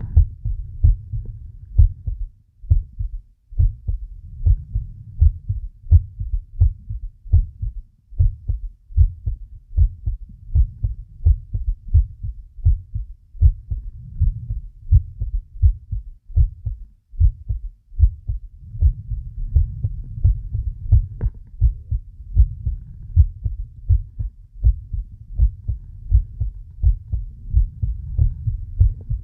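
A human heartbeat picked up close to the chest: a steady, quick run of low thumps. Underneath, low breathing sounds swell and fade slowly.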